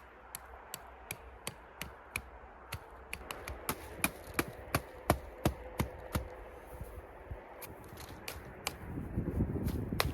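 A rapid series of sharp knocks or strikes, about three a second, getting louder a few seconds in.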